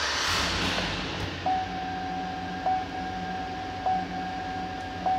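2007 Chevrolet Avalanche's 5.3-litre V8 starting right up and settling into idle, heard from inside the cab. From about a second and a half in, a dashboard warning chime dings about once every 1.2 seconds over the idle.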